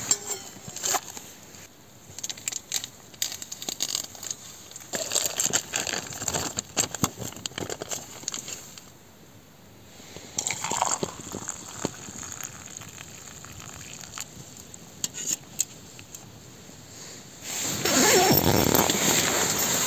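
Camp cooking and handling sounds: hot water poured from a stove pot into a steel mug, with short clicks and knocks as the mug is handled. Near the end comes a loud rustling of nylon fabric as clothing is handled.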